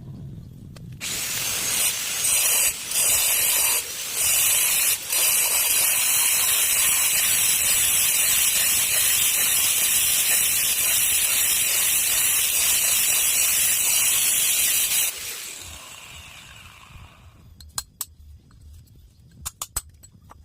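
A power tool runs under load for about fourteen seconds, with a hissing, grinding sound. It dips briefly three times in its first few seconds, then runs steadily and winds down. A few sharp clicks follow near the end.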